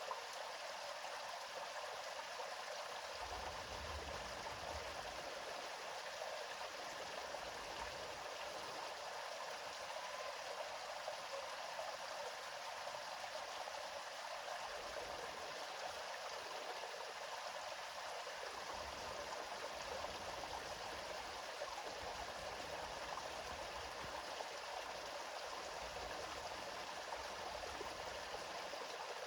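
River water flowing in a steady, even rush, with faint low rumbles now and then beneath it.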